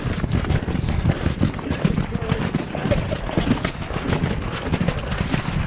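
Wind buffeting the microphone of a rider-mounted camera on an Irish Draught horse moving at speed, with the horse's hoofbeats thudding on wet turf.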